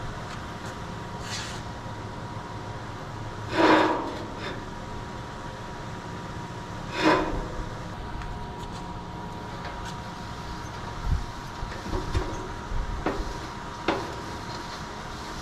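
Stainless-steel barbecue drum parts being handled: two louder metallic clanks with a short ring, a few seconds apart, then several lighter knocks near the end, over a steady hum with a faint high tone.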